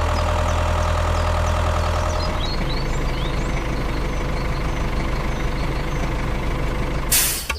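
Tractor engine idling with a steady low hum, with faint bird chirps over it. A short hiss comes near the end.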